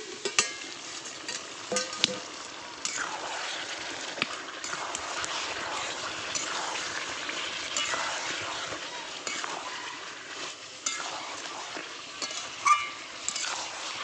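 Marinated mutton sizzling in thick spice masala in a metal kadai while a spatula stirs and scrapes it, at the stage of frying the meat down in its masala. Scattered clinks and knocks of the spatula and pan, with one sharp knock near the end.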